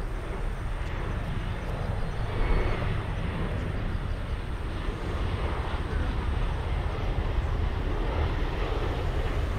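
Boeing 737-800 airliner on final approach, its CFM56 turbofan engines giving a steady jet rumble.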